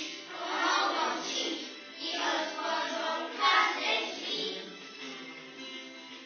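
A group of young children singing a song together, becoming quieter about five seconds in.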